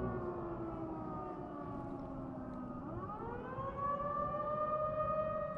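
Outdoor warning siren (civil-defence type) winding down to a low pitch, then winding back up about three seconds in and holding a steady high tone; the speaker calls it creepy.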